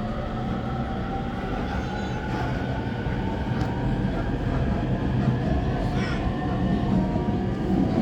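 Electric commuter train running, heard from inside the carriage: a steady rumble of wheels and running gear with a few steady motor tones, the overall loudness slowly rising.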